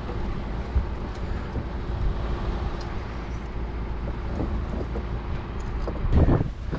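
Bucket truck's engine running steadily as a low rumble. A few louder low thumps on the microphone near the end.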